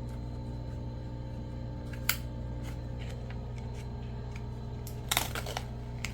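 Small plastic toy pieces being handled and fitted together: one sharp click about two seconds in, then a short cluster of clicks and rustling about five seconds in, over a steady low hum.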